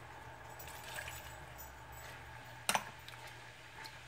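Honey-soy glaze in a small saucepan bubbling softly while lime juice is stirred in with a wooden spoon, with faint crackles and one sharp knock a little under three seconds in.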